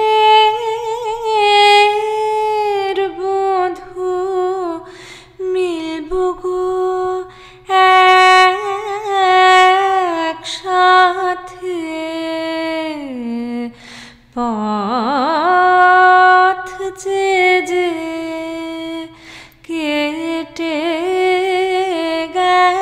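Solo female voice singing a Bengali song in long held notes with vibrato and quick ornaments, sliding slowly down to a low note and back up a little past halfway.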